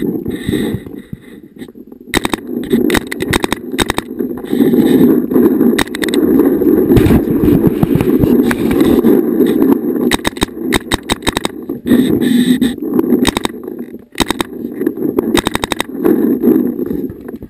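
Paintball markers firing in several bursts of rapid shots, over a loud steady low rush.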